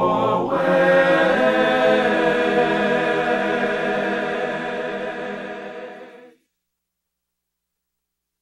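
Gospel choir singing and holding a final chord that slowly fades, cutting off about six seconds in.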